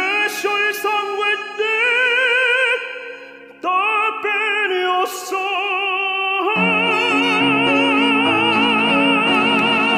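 Operatic tenor singing long held high notes with wide vibrato, over orchestral accompaniment that swells fuller and louder, with low notes added, about two-thirds of the way in.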